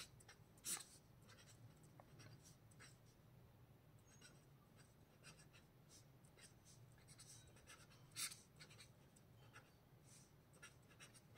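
Pen writing on paper: short, faint scratching strokes come in small clusters, two of them louder, over a faint steady low hum.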